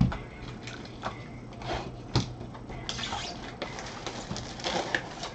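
Gloved hands handling a shrink-wrapped box of trading cards. There is a sharp knock right at the start and another about two seconds in, with crinkling of the plastic wrapping in between and after.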